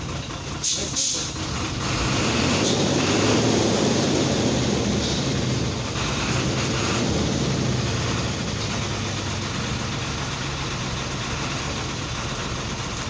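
Motor vehicle engine idling steadily, a low hum under an even rush, with a couple of brief clatters in the first second or so.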